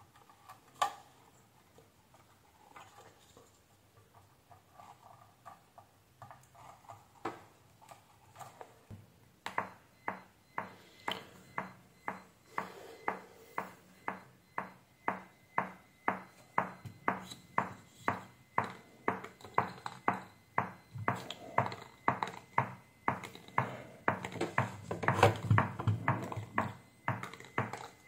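Small speakers driven by a car audio power amplifier clicking steadily about twice a second as it reproduces a very low-frequency test tone from a phone tone generator. The clicks begin about a third of the way in and are loudest near the end.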